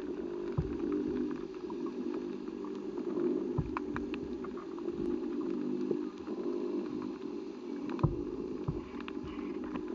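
Underwater sound: a steady low drone with a pulsing pattern, broken by scattered sharp knocks and clicks, the loudest just after eight seconds in.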